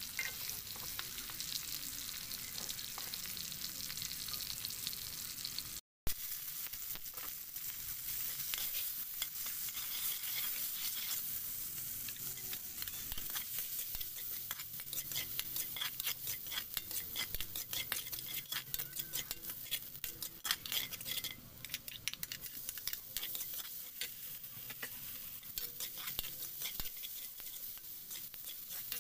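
Food sizzling and frying in a pan while it is stirred, the utensil clicking and scraping against the pan over and over.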